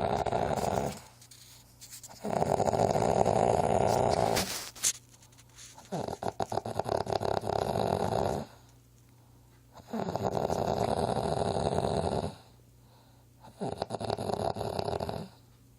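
Strange-sounding snoring: long rattling snores of about two seconds each, coming roughly every four seconds, five in all, with quiet pauses between breaths.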